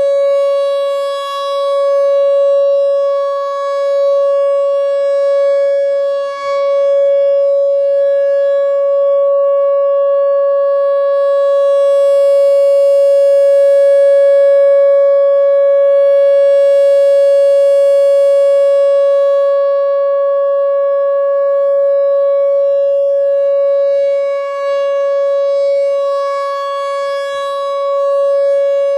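Whelen Vortex R4 outdoor warning siren sounding a loud, steady tone at one unchanging pitch: the full alert signal, not a wail. Its loudness swells and dips slowly.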